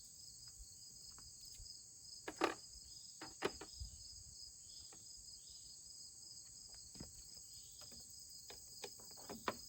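Crickets chirring steadily in the background, with a few light clicks and knocks.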